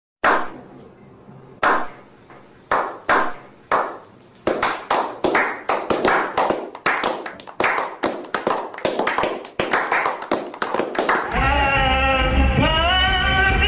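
A slow clap by a small group of people: a few single claps spaced out at first, then from about four seconds in quick, overlapping clapping that keeps going. It cuts off suddenly near the end, when karaoke music with singing comes back.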